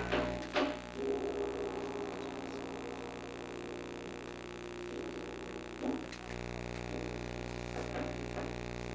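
Steady electrical mains hum on the recording. Its lowest part cuts out from about half a second to six seconds in, and a few soft knocks come near the start, around six seconds in, and near the end.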